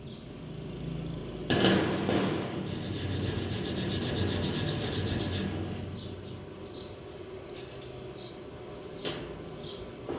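A knock, then a few seconds of dense rasping, scraping noise, like a tool working on metal. Short high chirps repeat in the second half.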